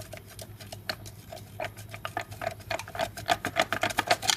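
Rapid metallic clicking and tapping as a steel bar pries and works loose the Yamaha Mio's rear gear-case cover. The clicks come quicker and louder toward the end, then stop abruptly.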